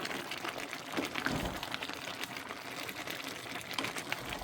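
A spoon stirring thick plantain porridge in a pot: wet sloshing and scraping, with a couple of dull knocks against the pot about a second in.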